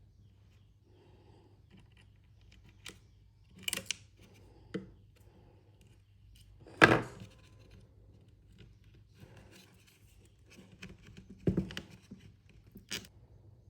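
Parts and hand tools being handled on a work surface: a few separate clicks and knocks, the loudest about halfway through.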